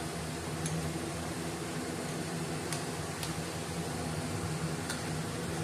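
Steady background hum, with a few faint clicks of a 10 mm wrench tightening the throttle-cable fitting on a hedge trimmer's carburetor.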